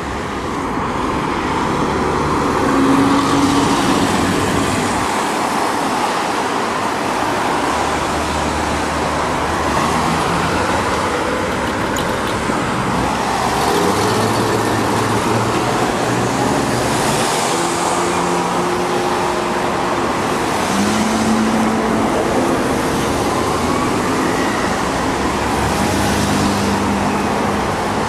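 Steady traffic on a busy multi-lane boulevard: cars passing through an intersection, tyre and engine noise with several louder pass-bys.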